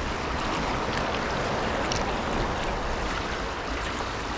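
Fast, turbulent river water rushing steadily.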